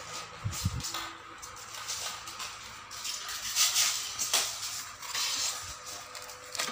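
Handling noise from a battery-powered quartz wall clock: the battery is pressed into its plastic movement, then the metal-framed clock is turned over and set down, giving scattered clicks, light knocks and rustles.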